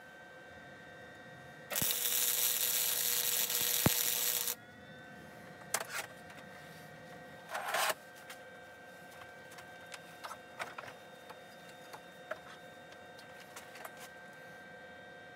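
MIG welding arc crackling in one burst of about three seconds, starting about two seconds in, and starting again at the very end. Between the welds there is a faint steady hum with a few light clicks and a short scrape.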